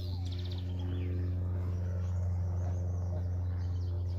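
Small birds chirping, with a quick trill near the start, over a steady low hum.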